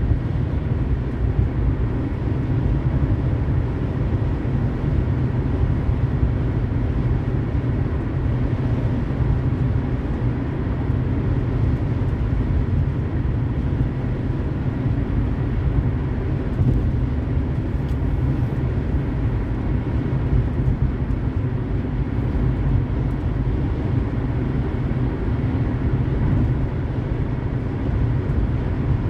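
Car driving at highway speed: a steady deep rumble of tyre, road and engine noise that holds even throughout.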